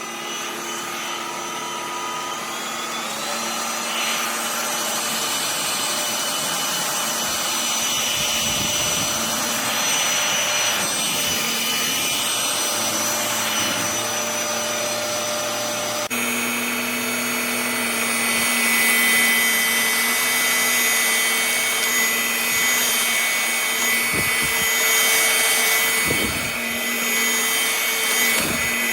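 Cordless stick vacuum cleaner running with a steady motor whine. It starts just before and climbs slightly in pitch over the first few seconds. About sixteen seconds in, its tone changes abruptly to a higher, louder whine, and there are a few low bumps near the end.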